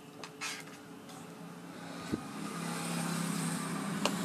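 Light clicks and knocks as the induction cooker's plastic control panel is handled. A low steady motor hum fades in about halfway through and grows louder.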